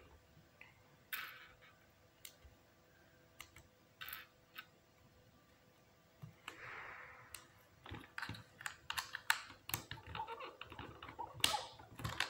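Plastic Lego Technic pieces being handled and snapped together: scattered sharp clicks and taps, few at first and coming thicker in the second half.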